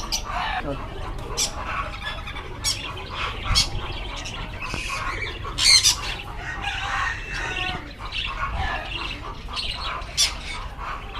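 Many cage birds squawking and chirping together in short, sharp calls, one louder squawk about six seconds in.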